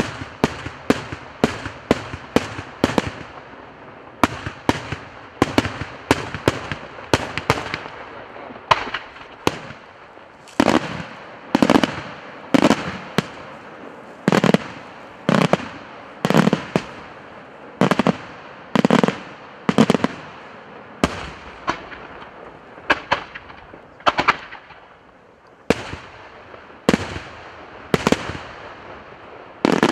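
Daytime aerial firework shells bursting in a steady run of sharp bangs, about one or two a second, each trailing off in a short echo, with a few heavier booms in the middle.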